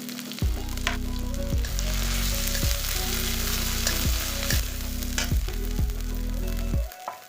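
Vegetables frying in hot oil, a steady sizzle, with a few sharp clicks of a spatula against the pan. Background music with a deep repeating beat plays under it and cuts out briefly near the end.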